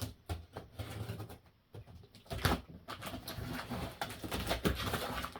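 A taped cardboard shipping box being opened by hand: irregular clicks, scrapes and rustling, denser from about two seconds in.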